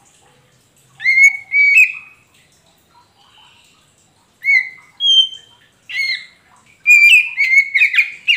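Oriental magpie-robin (kacer poci) singing: loud, short whistled notes that slur upward, two about a second in, a few more in the middle, and a quick run of notes near the end.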